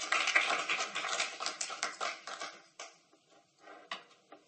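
Audience applauding: dense clapping that thins out after about two and a half seconds, leaving a few last single claps near the end.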